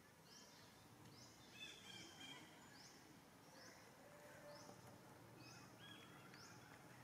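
Faint forest ambience: a high rising chirp repeats about once a second, with a few short high squeaks in between.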